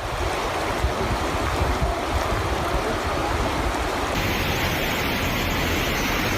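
Rushing floodwater: a steady, loud roar of fast-flowing water, turning hissier about four seconds in.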